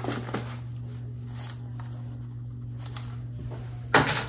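Cardboard wig box being handled, with a few faint light knocks and scuffs over a steady low electrical hum. A short, louder rustle comes near the end.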